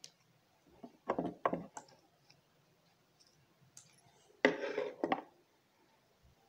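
Handling noise from work on a paper greeting card: a few sharp clicks, with short rustling bursts about a second in and again about four and a half seconds in, as pearl beads are pressed onto the card.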